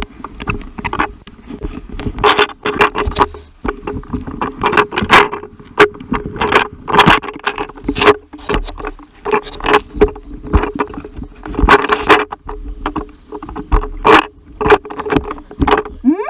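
Jet ski engine running steadily at speed, with repeated loud, irregular splashing bursts over it.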